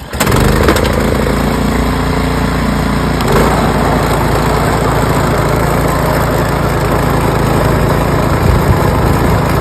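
Small gasoline engine of a snowblower running steadily, with a slight change in its note about three and a half seconds in.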